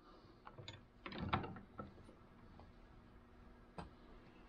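Faint clicks and knocks of a hammer's wooden handle being set in a steel bench vise and the vise's sliding handle being turned to clamp it. The loudest cluster of knocks comes about a second in, with one more click near the end.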